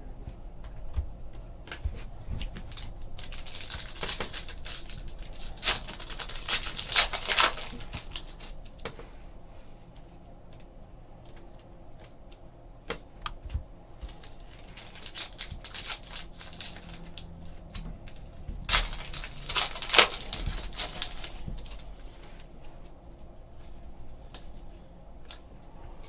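Trading card pack wrappers crinkling and tearing, with cards clicking as they are handled, in two bursts: a few seconds in, and again a little past the middle, over a low room hum.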